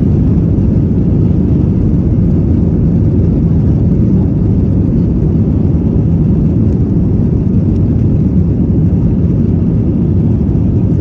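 Steady, loud drone inside the cabin of an Airbus A321-211 airliner, from the engines and the air rushing over the fuselage, deep and even with no change in pitch.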